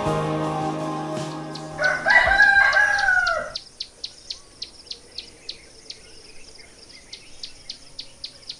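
Background music fading out, then a rooster crowing once, about two seconds in. After it, a steady run of short high chirps, about three a second.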